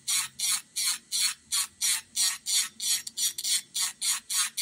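Rapid, even rasping strokes of a file across a sculpted acrylic nail, about three a second, as bulk is filed down to shape the nail.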